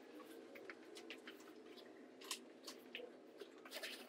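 Faint handling noises as rope is untied from gear loaded on a folding wagon: scattered rustles and light clicks, a little louder about two seconds in and near the end, over a low steady room hum.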